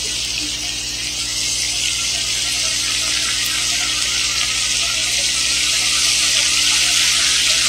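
Beef and onion sizzling steadily in a frying pan on a gas burner, just after stock has been added to soften the onion; the sizzle grows a little louder, over a steady low hum.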